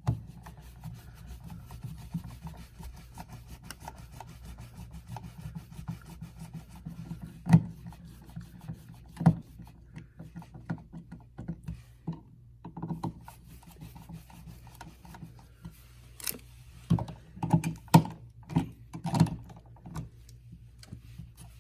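Screwdriver scraping and clicking on an outlet's mounting screws, with handling of the metal yoke against the drywall, over a low steady hum. Several sharper knocks come about a third of the way in and again near the end.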